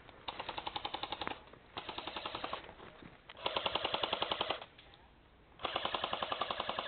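Airsoft gun firing on full auto: four rapid bursts of about a second each, with short pauses between.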